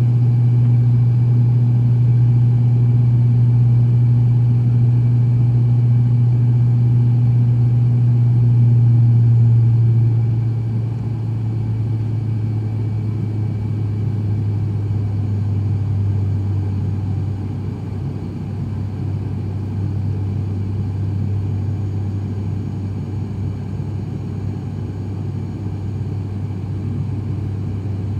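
Cabin drone of an ATR 72-500's Pratt & Whitney PW127 turboprops and propellers in the climb: a loud, steady low hum. About ten seconds in the hum drops slightly in pitch and loudness, as the propellers are slowed from takeoff power to climb power.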